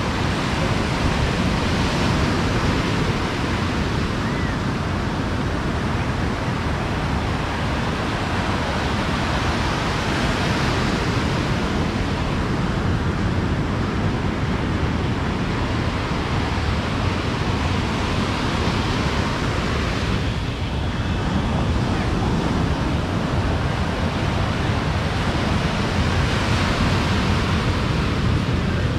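Ocean surf breaking close by and washing up a sandy beach, a steady rush of waves.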